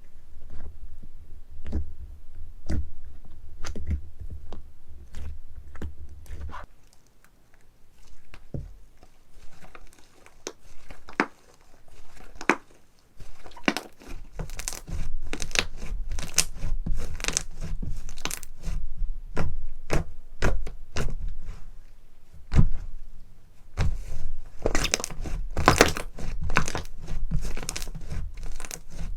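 Slime being squeezed and stretched by hand, giving irregular crackles and pops. They thin out for a few seconds after the start and are thickest near the end.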